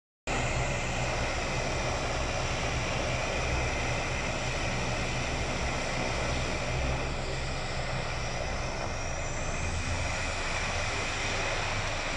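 Twin-engine turboprop airliner's engines running with a steady high whine over a low propeller drone as it starts its takeoff roll.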